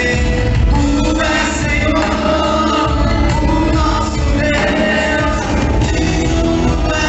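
Loud music with singing over a steady, heavy bass.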